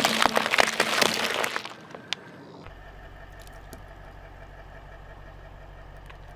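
Car tyre rolling over a plastic tray of eggs: a rapid run of sharp cracks as the shells and tray break, lasting about a second and a half. About two and a half seconds in, a car engine idling with a steady low hum takes over.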